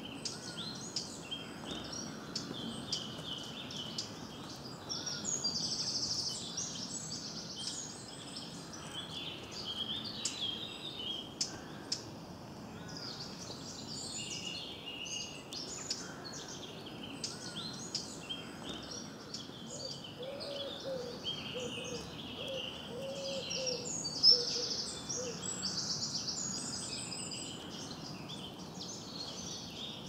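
Several woodland songbirds singing and chirping at once, high-pitched and overlapping. A low repeated call joins from about twenty seconds in, and a single sharp click stands out a little later.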